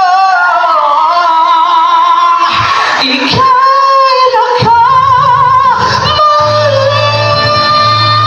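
A woman singing a slow melody with long held notes and wide vibrato over a backing track with a steady bass.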